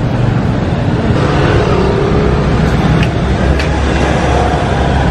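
Street traffic: a steady rumble of passing motor vehicles, with two short clicks about three seconds in.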